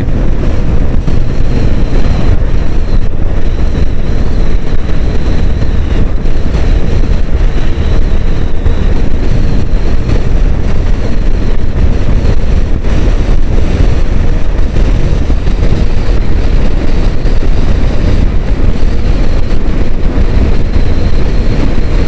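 Wind buffeting the microphone on a moving motorcycle at road speed: a loud, steady low rumble, with the bike's engine running evenly underneath.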